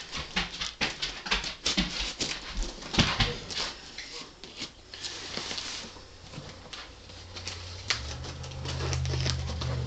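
Packing tape being picked at, peeled and cut along the seams of a cardboard shipping box, with crackling and rustling that is densest over the first half. A low steady hum comes in near the end.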